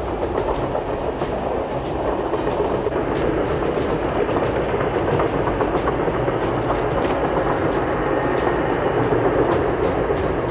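A rail vehicle running on track: steady running noise with scattered sharp clicks from the wheels and rails.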